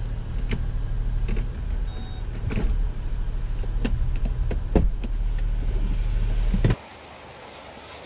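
4x4's engine running with a steady low rumble heard from inside the vehicle, with a scattering of sharp ticks and knocks over it. About seven seconds in the sound cuts off abruptly to a much quieter steady hiss.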